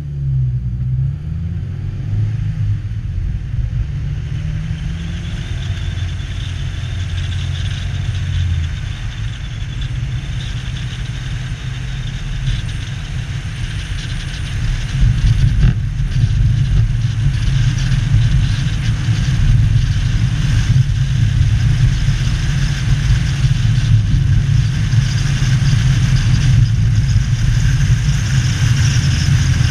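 Car pulling away from a standstill, its engine rising in pitch and stepping through the gears over the first several seconds. From about halfway in, louder steady engine rumble with tyre and wind noise as it cruises.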